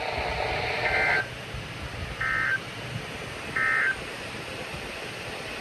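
Three short bursts of two-tone digital data, about a second apart: the SAME header that opens an Emergency Alert System alert on NOAA Weather Radio, here coding a flash flood watch.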